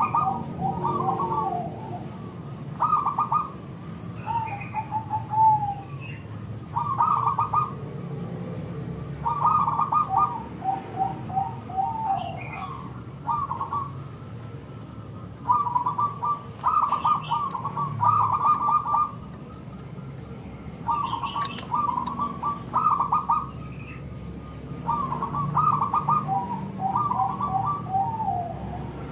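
Zebra dove (perkutut) cooing: phrase after phrase of rapid pulsing coos, some ending in a falling slur, a second or two apart.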